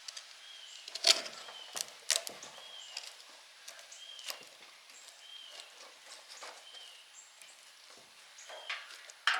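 Scattered clicks and snaps as the hand-tied, enamelled copper windings of an old electric motor's stator are cut and pulled apart, the loudest about a second and two seconds in.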